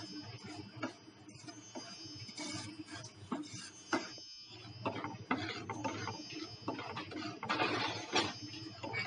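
Semolina being stirred around a pan with a spatula: an irregular run of scraping and rustling grains, with a few sharper taps of the spatula against the pan.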